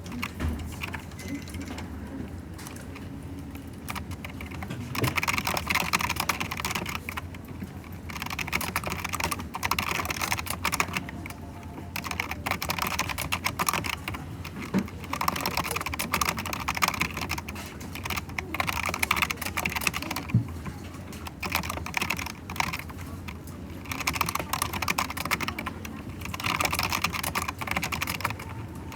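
Typing on a computer keyboard in bursts of a second or two, with short pauses between them; the first few seconds are quieter, with only a steady low hum.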